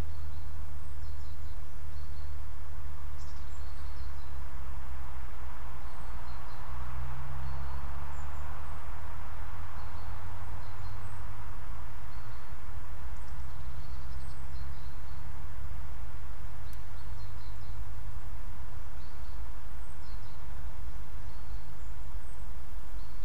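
Woodland ambience: small birds chirping at intervals, short high calls every second or two, over a steady low rumble.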